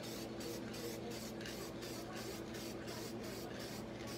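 Aerosol spray can of primer hissing in short, even spurts, two or three a second, as it is sprayed onto bare, rusty sheet metal.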